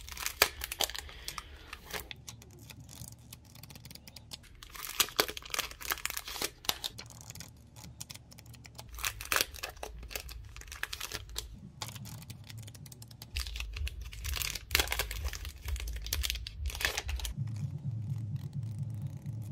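Clear plastic packaging crinkling and crackling in irregular clusters as stationery packs are handled and a plastic bag is pulled open.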